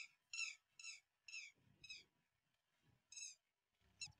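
A bird calling as it takes off: a quick run of five sharp, high notes, each dropping in pitch, over the first two seconds, one more call about three seconds in, and a short clipped note near the end.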